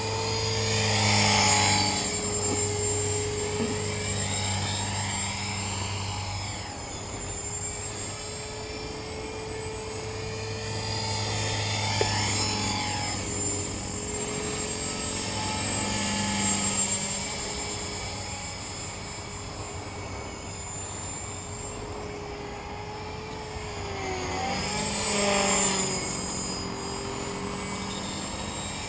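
T-Rex 450 electric RC helicopter in flight: a steady whine from its 3500kv brushless motor and gears under the rotor-blade hiss. The sound swells and its pitch bends as the helicopter passes close, about a second in, around 12 and 16 seconds, and again near 25 seconds. A squeal from a bad main bearing, as the owner describes it, runs through the sound.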